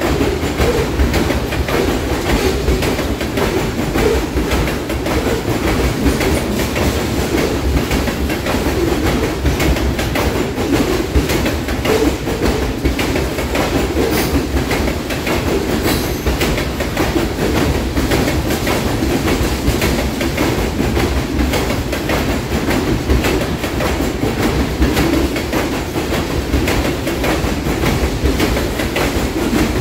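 Loaded railroad tank cars of a long freight train rolling steadily past: a continuous low rumble with frequent clicks and knocks from the wheels running over the rails.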